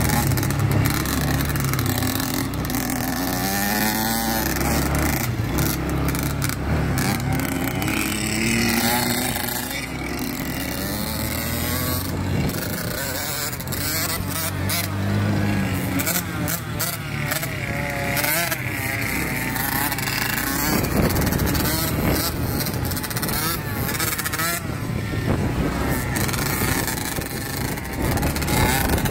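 Dirt bike engines running on the move, pitch rising and falling again and again with the throttle, mixed with frequent short knocks and rushes of noise.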